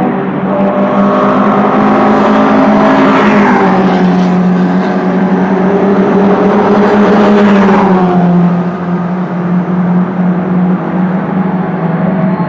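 Sports cars running hard past the pit wall on the circuit's main straight, each engine note loud and steady, then dropping in pitch as the car goes by. This happens twice, a little over three seconds in and again about eight seconds in, the second pass the louder.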